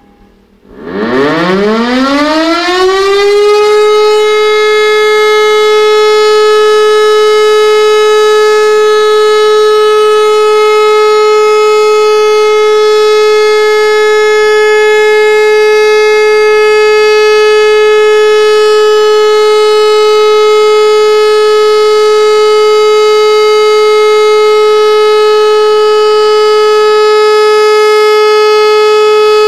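Civil-defence warning siren starting up about half a second in, its pitch rising over about three seconds, then sounding one loud, steady, unbroken tone. This is the steady tone that German sirens use for the all-clear (Entwarnung) signal.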